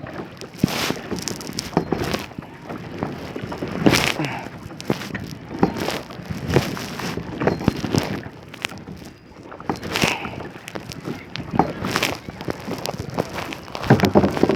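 Kayak paddle strokes in the water, a splash about every two seconds, with small clicks and drips in between.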